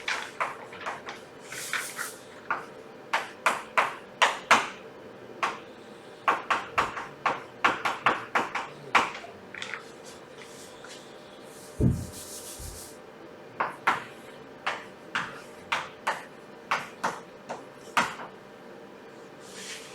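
Writing on a board: an irregular run of sharp taps and short scratchy strokes, with one dull thump about twelve seconds in.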